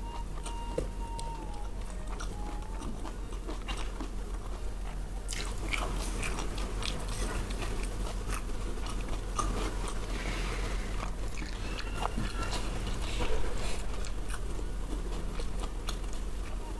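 A person chewing and crunching food close to a clip-on microphone, with many small clicks and crackles throughout.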